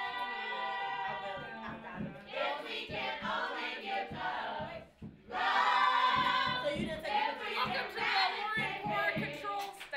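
A group of young voices singing together, choir-like, over a beat of low thumps. The singing breaks off briefly about five seconds in, then comes back louder.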